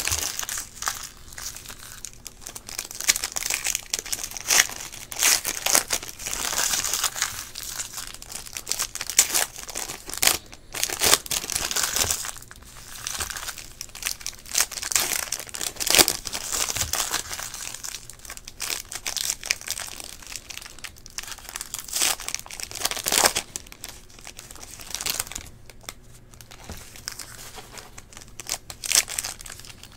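Foil trading-card pack wrappers crinkling and tearing as packs of Panini Select basketball cards are ripped open, in uneven spurts of crackling.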